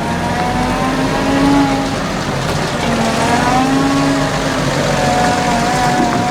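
Diesel tractor engine working hard at a silage clamp, its pitch rising and falling as it revs up and down.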